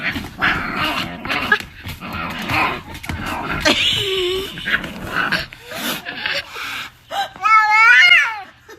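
A pet animal calling: scuffling and clicking noises, then a loud, long call about seven seconds in whose pitch wavers up and down.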